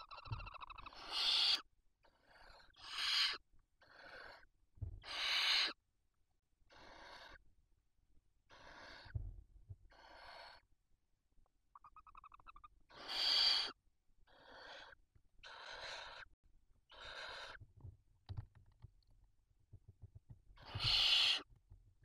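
Barn owls at the nest giving a long series of raspy hissing calls, about one every second or two, some much louder than others, with one short chirp about midway.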